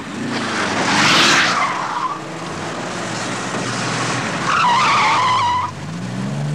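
Ford Capri accelerating hard. There is a loud rushing burst about a second in as it pulls away over gravel, then a tyre squeal lasting about a second past the middle, with the engine revving higher near the end.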